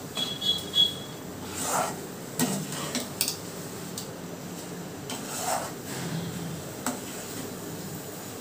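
A spoon scraping and knocking in a pan in irregular strokes as thick rice-rava dough is stirred on the heat, thickening toward a consistency firm enough to pat out.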